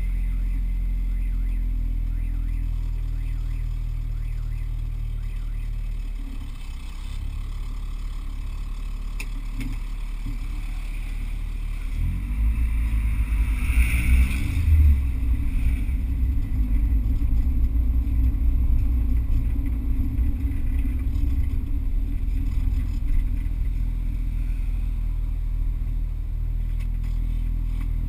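A manual car's engine running under way, heard from inside the cabin with low road rumble. About twelve seconds in it gets louder and the revs climb as the car accelerates through the gears.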